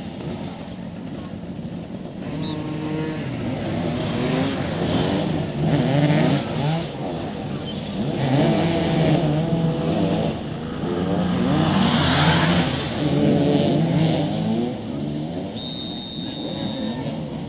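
Several motoball motorcycles revving and accelerating, their engine notes rising and falling over one another as they chase the ball. Near the end a short, steady high tone sounds over the engines.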